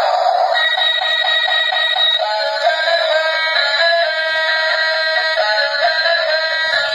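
Electronic tune played by a battery-operated toy Thomas the Tank Engine, a melody of stepping notes starting about half a second in.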